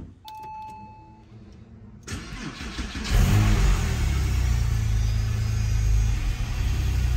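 A short electronic beep, then a Porsche 911 (996) flat-six engine cranking about two seconds in and catching about a second later, then running steadily.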